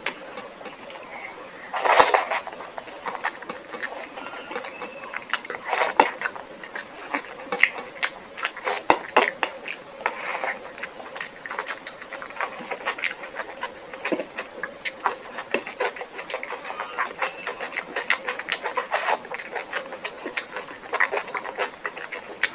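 Close-miked chewing and mouth sounds of a person eating: a steady run of irregular wet smacks and crunchy clicks, with a louder burst about two seconds in.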